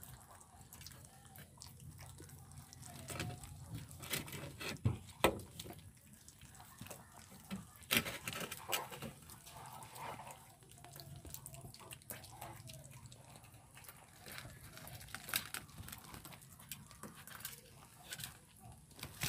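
Puppies eating from a plate: quiet wet chewing and licking with a few sharp clicks.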